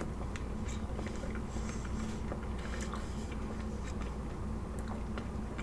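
Close-miked chewing and soft mouth sounds of someone eating bacon dipped in a chocolate Frosty: scattered small clicks and wet smacks over a steady low hum.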